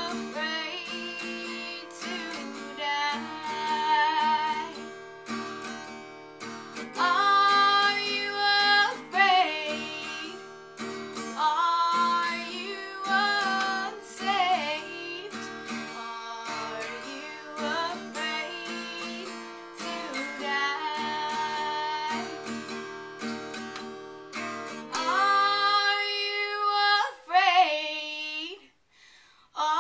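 A woman singing a slow country gospel song, accompanying herself on a strummed acoustic guitar. About 26 seconds in the guitar stops, and she sings the last lines unaccompanied.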